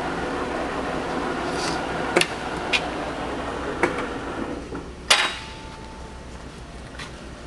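1994 Hwacheon 16 x 40 metal lathe running with a steady mechanical noise, broken by a few sharp metallic clicks and then a loud metallic clunk about five seconds in, after which the running noise falls to a quieter hum.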